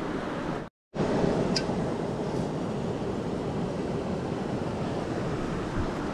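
Steady rushing of a river flowing over rocks, an even noise with no distinct events, dropping out for a split second about a second in.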